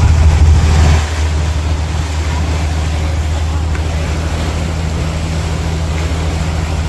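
Fishing boat's engine running steadily with a low drone, with water rushing in the wake. For the first second a louder hiss of wind and rain lies over it, then drops away suddenly.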